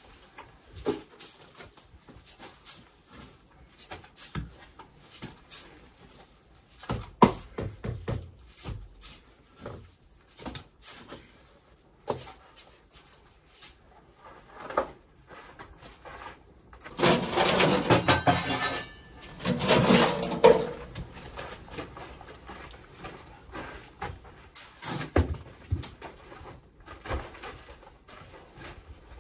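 Hand-work noise of building-site prep: scattered scrapes, clicks and knocks of tools and materials, with two louder rushing scrapes about two-thirds of the way in.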